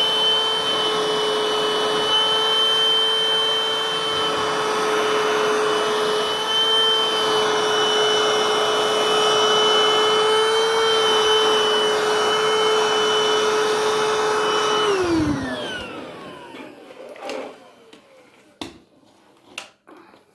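Vacuum cleaner running steadily with a high whine, switched off about fifteen seconds in and winding down with a falling pitch, followed by a few light knocks.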